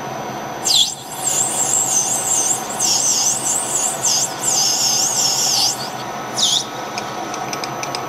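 Metal lathe running with a steady motor hum while the cutting tool squeals against the spinning workpiece. The squeal is a high, wavering whine starting about a second in and running until nearly six seconds, then comes back briefly near the end.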